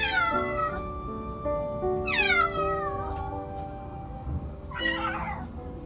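A domestic cat meows three times, each call starting high and falling in pitch; the middle call is the longest. Background music with sustained notes plays underneath.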